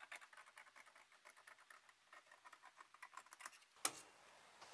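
Tailor's shears snipping in short cuts through cotton shirt fabric while an armhole curve is trimmed, a quick run of faint clicks and crunches. A sharper click comes a little before the end.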